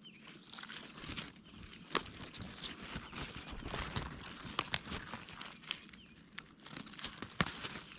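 Dry leaves and wood-chip mulch rustling and crackling close up as a beet is grasped by its leaves and worked loose from the ground by hand, with a few sharp snaps and crunches among the rustling.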